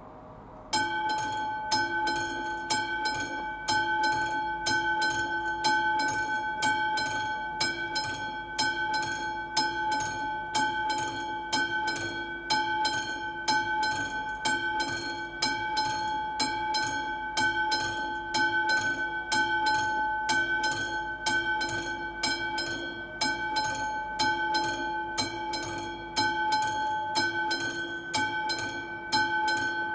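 Mechanical warning bell of a Czech level crossing starting about a second in and ringing continuously with rapid, even strokes and a sustained metallic ring. This is the crossing's warning signal that a train is approaching.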